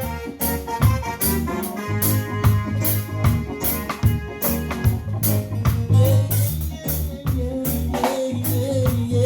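Live band playing an instrumental groove for a dub plate: drum kit keeping a steady beat over a bass line and keyboard chords, with a wavering melody line coming in about six seconds in.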